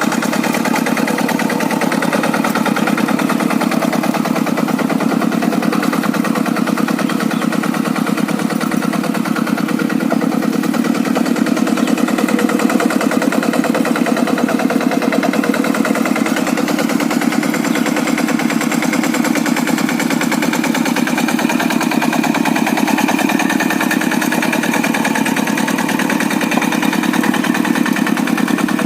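Single-cylinder Kubota diesel engine of a Quick G100 two-wheel hand tractor, running steadily with a rapid, even firing beat.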